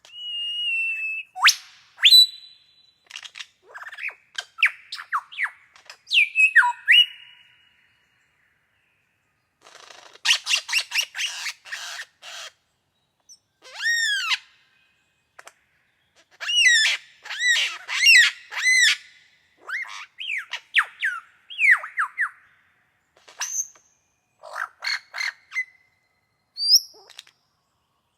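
A bird calling in a varied string of whistles, chirps, quick sweeping notes and harsh rasping squawks, in short phrases with pauses between.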